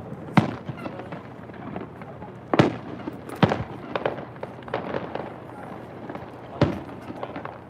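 Fireworks going off: several sharp bangs at irregular intervals, the loudest a little under three seconds in, over a steady background hiss.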